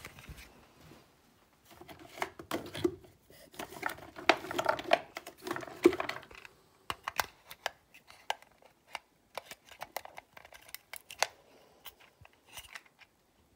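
Rummaging through a cupboard and shelves for a battery: things rattling, rustling and knocking about for a few seconds, then a run of light, sharp clicks from small items being handled, two or three a second.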